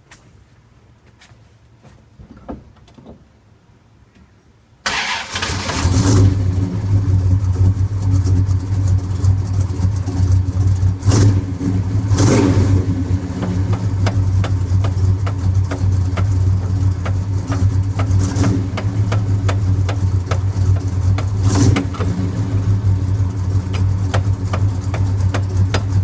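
A car engine starting about five seconds in and then running steadily, with a few sharp knocks. The vehicle's 3.23-ratio rear axle gears are said to be making noise.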